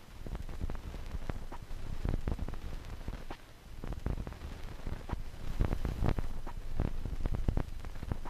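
Irregular crackling clicks over a low rumble, with a denser, louder cluster of crackles about two-thirds of the way through.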